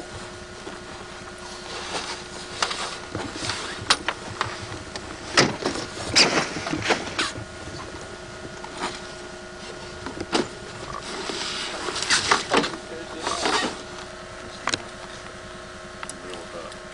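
Scattered knocks and clunks of vehicle doors and gear being handled at a parked SUV, about a dozen in all, heaviest around the middle and again near two-thirds of the way through, over a faint steady hum.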